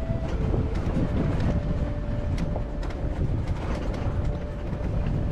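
Jeep driving slowly over a rocky dirt track: a steady low rumble of engine and tyres, with scattered clicks and rattles as it rolls over stones.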